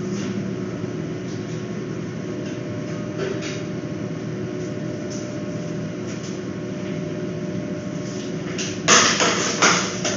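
Steady mechanical hum of room machinery with a few faint ticks, then a brief cluster of sharp, loud clattering knocks about nine seconds in.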